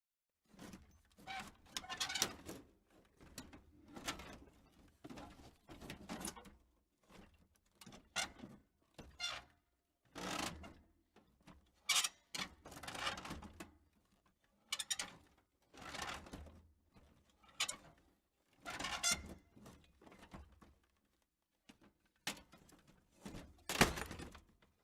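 Metal debris being shifted and dropped, heard with room reverberation: a string of separate creaks, scrapes and clanks every second or two, with a sharp, loud clank near the end.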